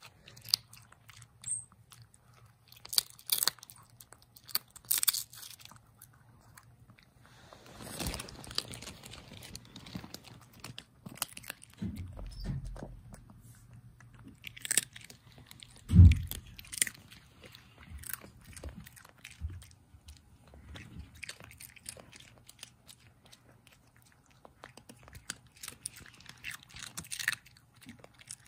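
A small Boston terrier–Chihuahua mix dog chewing a treat with many irregular crunches and clicks of its teeth. There is one dull thump just past halfway.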